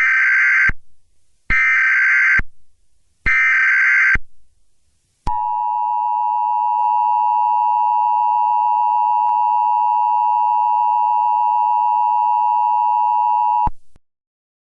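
Emergency Alert System broadcast opening: three short bursts of SAME header data tones about a second apart, then the two-tone attention signal, a steady dual tone held about eight seconds that cuts off suddenly. Together they mark the start of an emergency alert.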